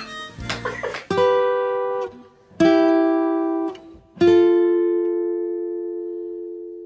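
Background music on plucked acoustic guitar: a quick run of notes, then three strummed chords, the last left to ring and slowly fade away.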